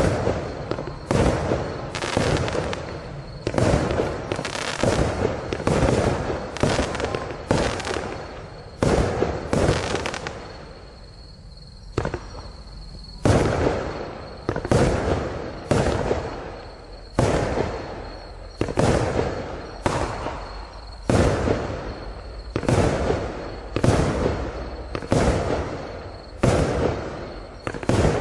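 A consumer fireworks compound cake, the Blackboxx Pyro-Spektakel Level 1 (97 shots of 20 and 25 mm calibre), firing. Its shells burst in the air in quick succession, roughly one bang a second, each trailing off, with a short lull about ten seconds in.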